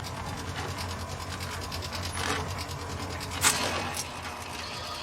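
Rapid, steady mechanical clicking over a low hum, with a sharper knock about three and a half seconds in.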